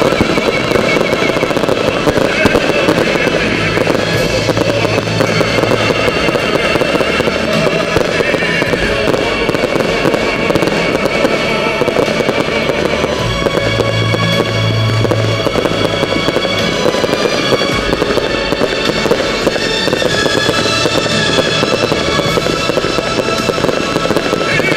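Fireworks display set to music: a dense, continuous crackle and popping of fireworks over a music soundtrack with a steady bass line.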